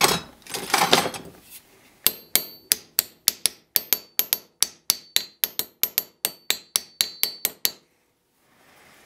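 Small hammer tapping a Damascus steel knife guard resting on the handle posts: about four light, quick taps a second for some five and a half seconds, each with a short metallic ring. The taps transfer the post positions onto the guard to mark where its holes are to be drilled.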